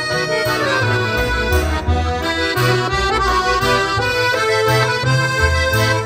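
Instrumental background music: sustained chords and melody over a bass line that moves to a new note about twice a second.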